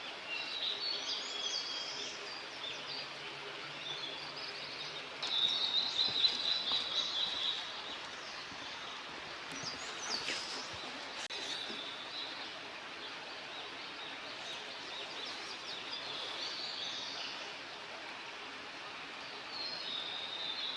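Birds chirping and singing in short high phrases over a steady outdoor background hiss. The loudest run of chirping comes about five seconds in and lasts a couple of seconds, with quieter calls scattered through the rest.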